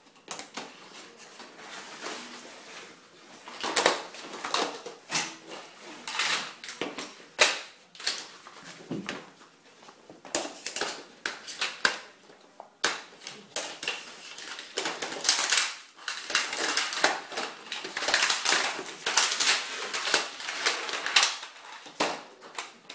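Aluminium magnetic bars of a pop-up display stand clacking and clicking against each other and the tile floor as they are gathered and stacked, a run of irregular sharp knocks.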